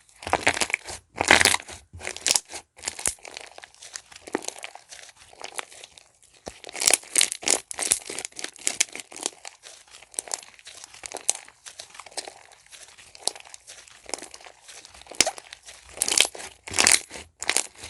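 Slime being squished and pressed by hand, giving a dense, irregular run of crackles and pops that comes in busier spells.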